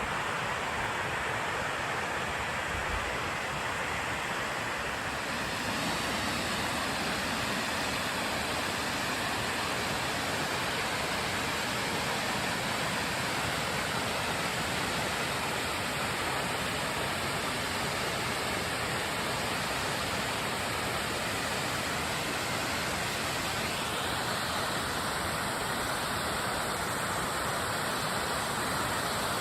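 Pratt's Falls, a 137-foot ribbon and cascade waterfall, giving a steady rushing roar of falling water.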